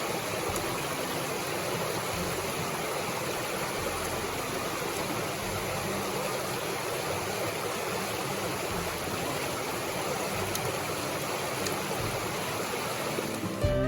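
Steady rush of a rocky mountain river.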